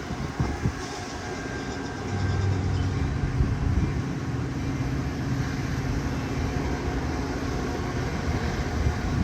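Metra commuter train's diesel locomotive running at the station, a steady low engine drone that gets louder about two seconds in and then holds.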